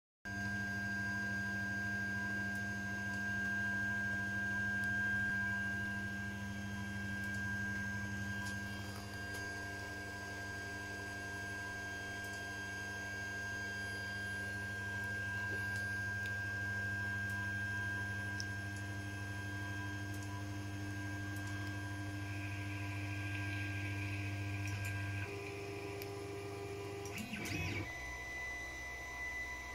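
Creality Ender 5 3D printer running: a steady whine and hum from its fans and stepper motors. The tones change about 25 seconds in, and a brief rattle comes near the end.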